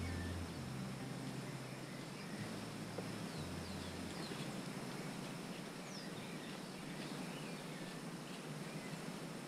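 Outdoor ambience: a steady hiss of background noise with scattered faint bird chirps. A few low bass notes of music die away in the first four seconds or so.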